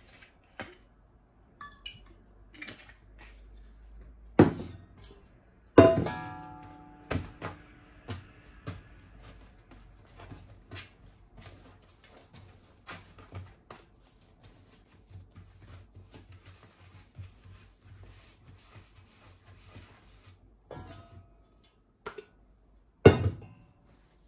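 Kitchenware clinking and tapping: many light knocks of utensils against dishes. About six seconds in a dish is knocked hard and rings for a couple of seconds, and another heavy knock comes near the end.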